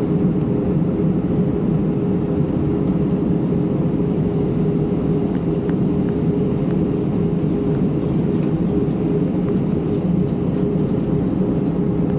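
Jet airliner cabin noise on approach: a steady, even drone of engines and rushing air, with a faint constant hum running through it.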